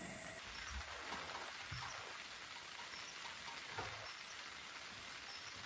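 Steady rain pattering, with a few heavier drops landing now and then.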